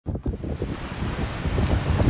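Wind buffeting the microphone: a gusty low rumble that swells and dips.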